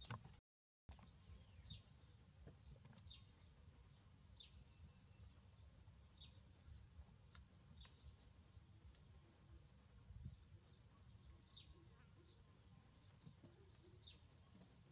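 Faint bird chirps: short, high, falling notes about once a second, over low background noise.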